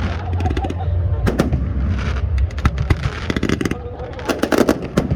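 Aerial fireworks bursting: sharp bangs and clusters of rapid crackling, with a low rumble in the first second.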